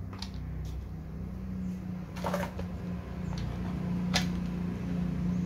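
A few scattered clicks and knocks from hands handling a plastic-bodied rotary hammer and its chuck: a small cluster about two seconds in and a sharp click about four seconds in. A steady low hum runs underneath.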